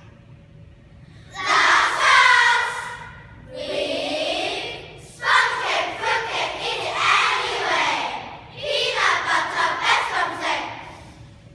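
A children's speaking choir reciting a poem in unison, many young voices chanting together. After about a second of quiet the voices come in about a second in, and the recitation goes on in four phrases with short pauses between them.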